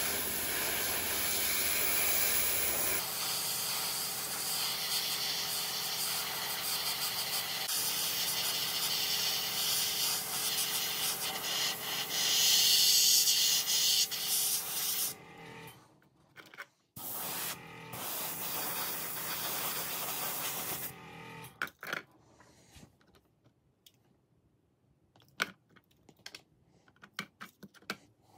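Budget airbrush spraying weathering paint onto a model wagon's underframe: a steady hiss of air and paint for about fifteen seconds, louder for a moment a little before it stops, then two shorter sprays. Near the end there are only a few light clicks and taps.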